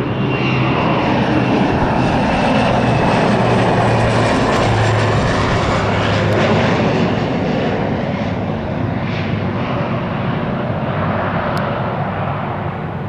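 Beechcraft Super King Air 200's twin Pratt & Whitney PT6A turboprops on landing approach, flying past close by: a low propeller drone with a high turbine whine that drops slightly in pitch as the aircraft passes. It is loudest about four seconds in and fades toward the end.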